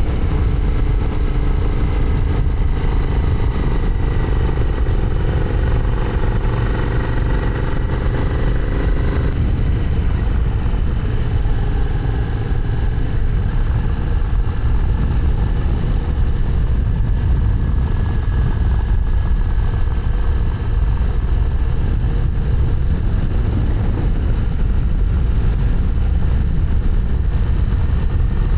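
Royal Enfield 650's parallel-twin engine running steadily at cruising speed, mixed with heavy wind rush over the microphone.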